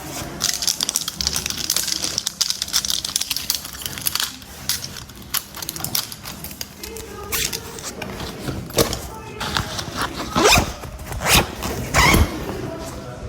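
A rasping, zipper-like rustle for the first few seconds, then scattered clicks, knocks and handling noises of objects, with a few louder thumps near the end.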